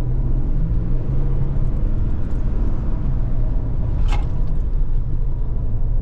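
In-cabin sound of a 2022 Toyota Tundra's 3.5-litre twin-turbo V6 accelerating from about 45 mph, heard as a steady low rumble mixed with road noise. The factory engine sound enhancement through the speakers is switched off, so this is the real engine, relatively quiet.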